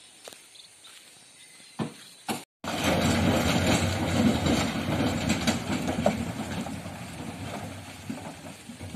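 A heavy diesel vehicle engine running loud and rattling, starting abruptly about two and a half seconds in and slowly fading toward the end. The first part is quieter, with a couple of knocks.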